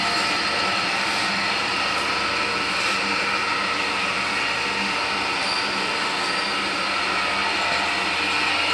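A machine running steadily: an even mechanical noise with a constant hum and several high, steady whining tones.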